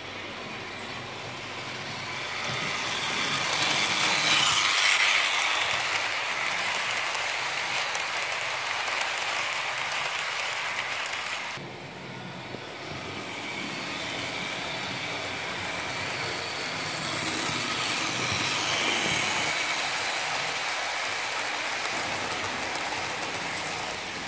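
Model train, a BR 03.10 streamlined steam locomotive with coaches, running over the layout's track: a steady rolling rumble and hiss that swells as it passes close. It breaks off abruptly about halfway through, then builds again for another pass.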